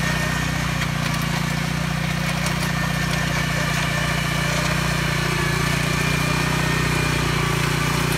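Small powered tiller-cultivator's engine running steadily while its tines churn through garden soil.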